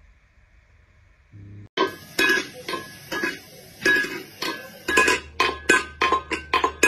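Metal pet food bowl clanking repeatedly as a cat bangs it with its paw: a fast run of sharp metallic clinks with a short ring, about three a second, starting about two seconds in.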